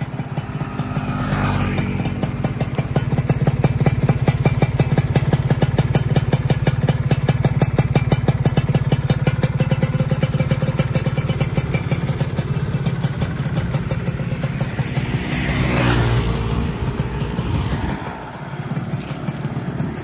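Freshly rebuilt Yamaha F1ZR two-stroke single-cylinder engine idling smoothly through an RTX exhaust on its first run, while it breaks in a new piston and cylinder block. The sound swells briefly near the end, then settles lower.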